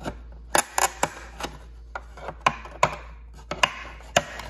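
Sharp plastic clicks and snaps, a dozen or so at irregular intervals, as a screwdriver pries at the small retaining tabs of a 2019 GM heavy-duty pickup's tow mirror housing to release the mirror cap.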